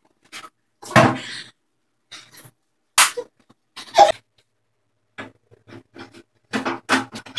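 Cast-iron table saw set down onto its wooden stand: a heavy thump about a second in, then two sharp knocks near three and four seconds. Short low voice sounds follow near the end.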